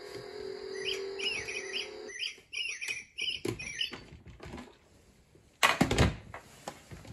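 A run of quick, high, chirping electronic toy notes over a steady hum that stops about two seconds in. Then come scattered clicks and knocks, and a short loud rustling thump a little before the end.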